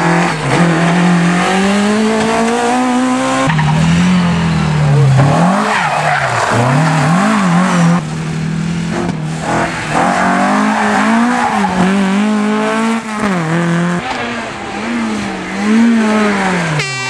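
Rally cars' engines revving hard through a tight bend, one car after another. The pitch drops sharply on braking and downshifts and climbs again on acceleration. The sound switches abruptly from one car to the next every few seconds.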